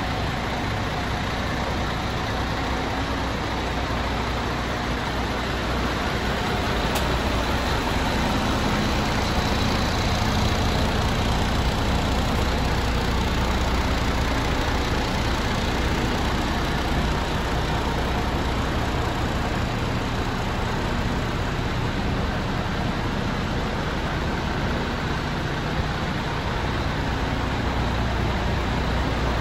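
Diesel engine of a MAN TGX 26.480 tractor unit, a 12.4-litre straight-six, idling steadily at an even level.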